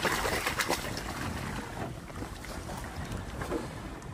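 Steady wind on the microphone and sea water washing around a small fishing boat at sea, with a few faint knocks in the first second.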